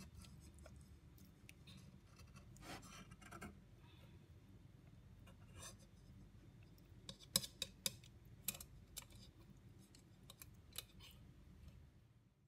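Light metallic clicks and scrapes as a pronged metal kitchen utensil is handled and worked into a raw chicken: a short run of clicks about three seconds in and a few sharper clicks from about seven to eleven seconds in. A faint low hum sits underneath.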